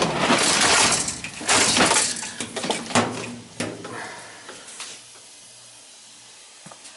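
Loud clattering and clinking of metal for about four seconds, then it settles to a low steady hum of the belt-driven gas furnace running, its blower motor pulley freshly replaced.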